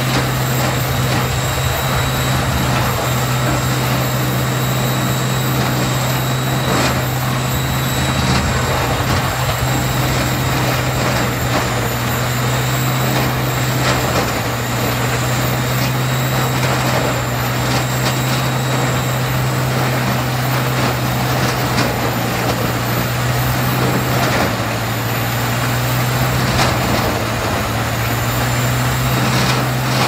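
A tracked horizontal wood grinder runs steadily under load, its diesel engine holding a constant low drone as it shreds logs and stump wood. Scattered cracks and knocks of wood breaking come through the grinding noise.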